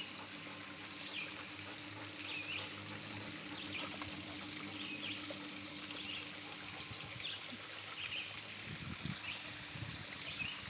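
Shallow creek water trickling over rocks, with a bird's short high chirps repeating about once a second. A few low thumps near the end.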